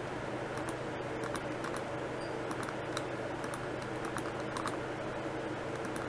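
Irregular clicking of a computer keyboard and mouse buttons, a dozen or more short clicks, over a steady low hum.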